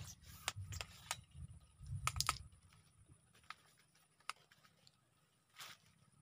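Scattered sharp clicks and taps from handling the fishing rod and line while a hooked climbing perch is played and swung in, with a cluster of clicks about two seconds in and a low handling rumble that fades soon after. A short hiss-like rustle comes near the end.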